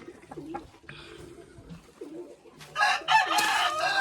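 Rooster crowing loudly about two-thirds of the way in, one long crow that carries on past the end. It follows a few short, soft low calls.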